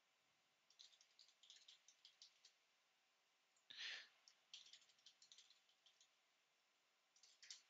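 Faint computer keyboard typing: quick runs of keystroke clicks in three short bursts, with one louder knock about halfway through.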